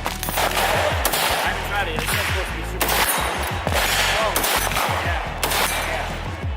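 Machine-gun and rifle fire in a montage, laid over music with deep falling bass notes that repeat.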